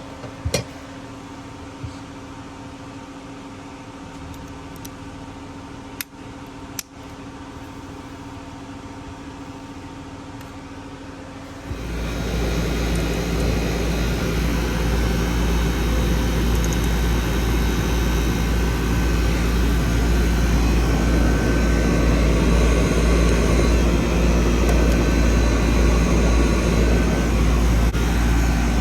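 A few sharp clicks over a low hum, then about twelve seconds in the air conditioner's outdoor condensing unit starts up and runs steadily with a loud low hum: the compressor and condenser fan coming on once the blown disconnect fuse has been replaced.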